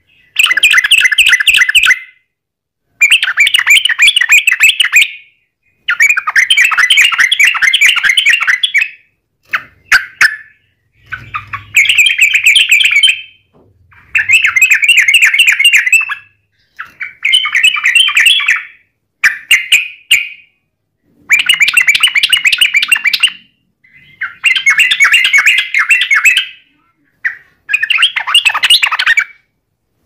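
Yellow-vented bulbul (trucukan) song: about ten long phrases of fast, chattering notes, each two to three seconds long, with short pauses between. This is a continuous 'ropel' lure recording, played to provoke other bulbuls into singing back.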